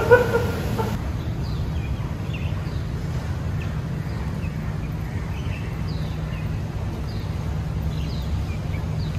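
Faint small birds chirping in short repeated calls over a steady low rumble.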